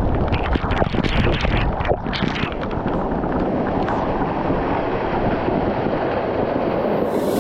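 Steady rush of water with wind buffeting the microphone, and short splashy crackles through the first three seconds.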